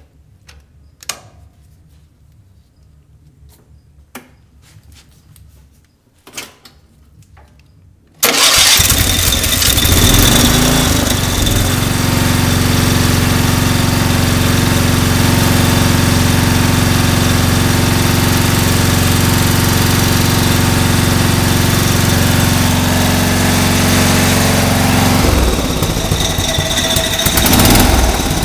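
A few faint clicks and knocks, then about eight seconds in the Briggs & Stratton engine of a Simplicity Regent 12 lawn tractor fires on a cold start, jumped directly at the starter, and runs steadily. Its engine note shifts near the end.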